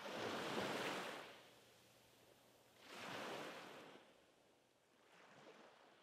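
Small waves washing onto a sandy shore: three swells of surf, one right at the start, one about three seconds in and a faint one near the end, each weaker than the one before.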